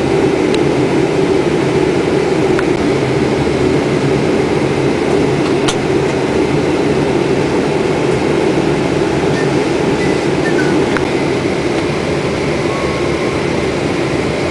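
Steady rush of airflow and engine noise on an airliner's flight deck during the approach, with a single sharp click about six seconds in.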